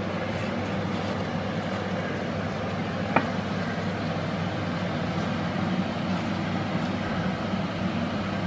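Steady low hum with a noisy rumble under it, and one light click about three seconds in.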